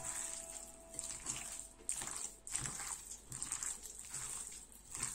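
Hands squishing and turning raw, seasoned chicken pieces in a glass bowl: irregular wet squelches, one every half second to a second.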